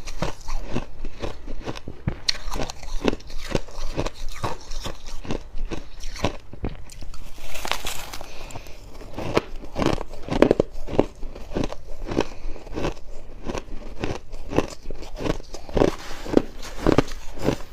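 A person chewing a mouthful of fluffy freezer frost close to the microphone: dry, crisp crunches, several a second, in a steady run.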